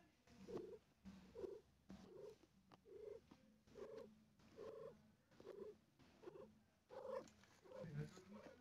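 Mother cat purring faintly in a steady rhythm, each breath a short pulse, a little faster than once a second.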